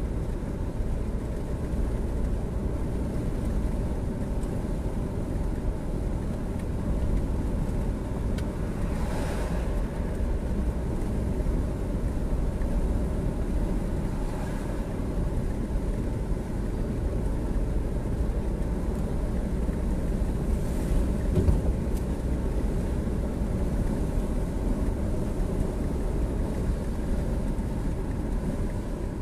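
Steady low rumble of engine and road noise from a moving road vehicle, heard from inside the cabin, with a brief rushing sound about nine seconds in.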